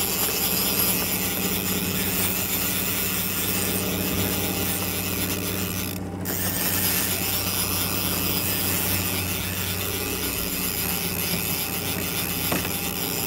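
Boat's outboard motor running with a steady hum, overlaid by the mechanical clicking of a fishing reel while a hooked sockeye salmon is played on a bent rod. The high part of the sound briefly drops out about six seconds in.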